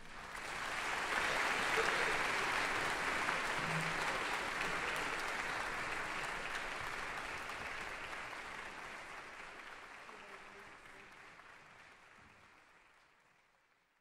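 Concert audience applauding, swelling within the first two seconds and then slowly fading away to silence.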